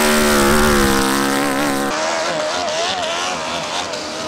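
Hill-climb motorcycle engine held at high revs, its pitch sagging slightly. About two seconds in it changes abruptly to a thinner engine note that wavers up and down in pitch.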